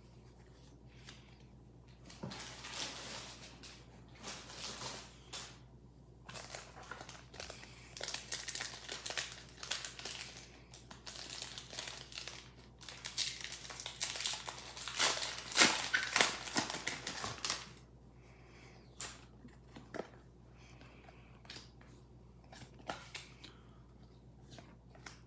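Foil wrapper of a Pokémon trading card booster pack crinkling and tearing as it is pulled open by hand, with sharp crackles at its loudest. For the last several seconds only a few soft ticks remain as the cards are handled.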